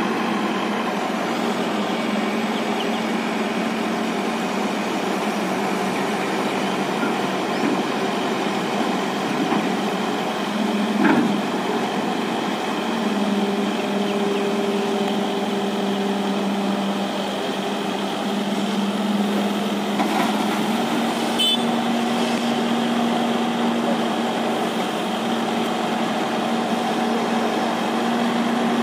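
JCB JS140 tracked excavator's diesel engine running under load as the machine levers itself up onto a flatbed truck with its boom. It is a steady drone whose note shifts a few times, with a knock about 11 seconds in and a sharp click around 21 seconds in.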